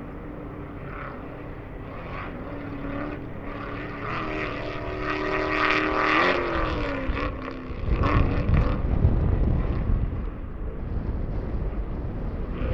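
Off-road race vehicle's engine approaching and growing louder, then its pitch drops as it passes about six seconds in. A loud low rumble follows for a couple of seconds.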